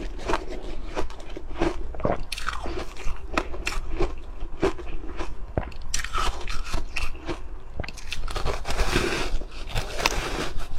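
Ice being bitten and chewed close to the microphone: a run of sharp, irregular cracks and crunches as the cubes break between the teeth, growing denser near the end.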